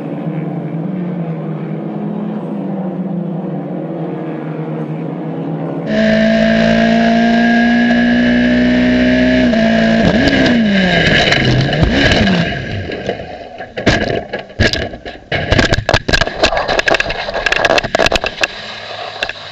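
Race car engines running at high revs. About ten seconds in the engine pitch falls away, and a string of sharp impacts and clattering follows: a racing crash.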